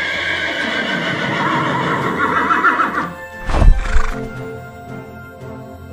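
Horse whinny sound effect, a long wavering neigh of about three seconds. A loud low thump follows about three and a half seconds in, then soft background music begins.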